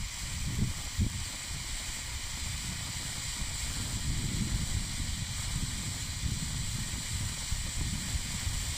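Weco Knisterteufel firework fountain with blue stars burning with a steady hiss as it throws up sparks, over a low, uneven rumble.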